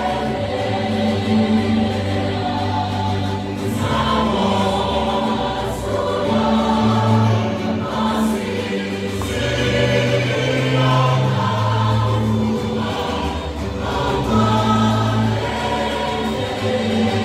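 A choir singing in sustained chords over held low notes that shift every second or two.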